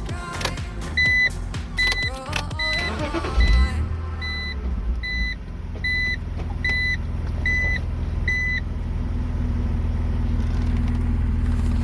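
BMW Z4's M54 straight-six engine cranking and catching about three and a half seconds in, then idling steadily with its freshly cleaned idle control valve refitted. A dashboard warning chime beeps regularly, a little faster than once a second, stopping about eight and a half seconds in.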